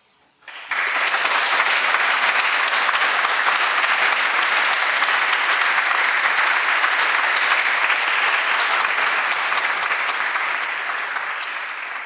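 Audience applauding after a piano piece, starting suddenly about half a second in, holding steady, and beginning to die away near the end.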